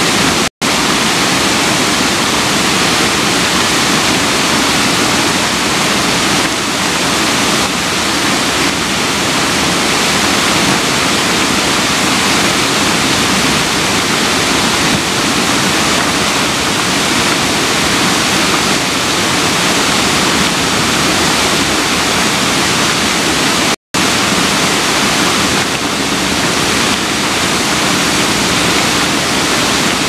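Waterfall rushing steadily, a wide curtain of water crashing onto rocks. The sound cuts out for an instant twice, just after the start and about 24 seconds in.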